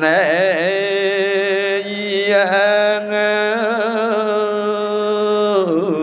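A Buddhist monk's solo smot, the melodic Khmer Buddhist chanted recitation, sung by a man's voice into a microphone. He draws out long held notes that waver and bend in slow ornaments, the phrase ending near the end.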